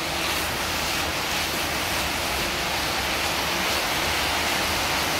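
Mint leaves, greens and fish frying in a wok, giving a steady, even sizzle as they are stirred.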